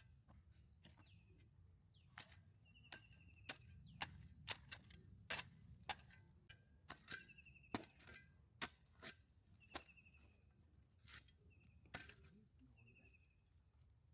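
Irregular sharp knocks, a dozen or more, coming thicker in the middle, with a few short high chirps in between.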